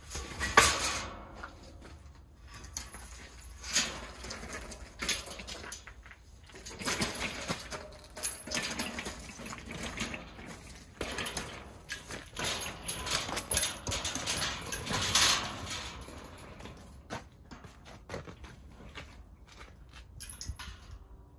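Steel wire-mesh leek crate being pushed on its newly fitted caster wheels over a gritty yard: the cage rattles and clatters in irregular spells, with the wheels rumbling on the ground. The loudest clatters come about half a second in and around the middle.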